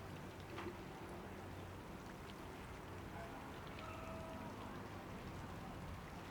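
Canal-side community ambience: a steady low mechanical hum with scattered faint ticks and patters, and a brief faint tone about halfway through.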